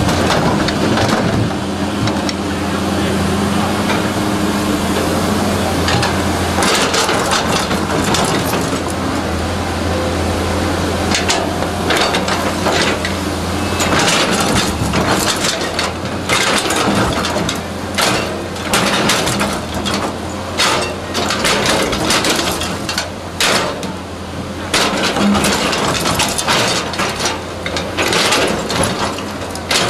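Caterpillar tracked hydraulic excavator's diesel engine running steadily while its steel bucket digs into a pile of broken rock, with rocks cracking, knocking and clattering. The knocks come thick and fast in the second half as the engine hum thins out.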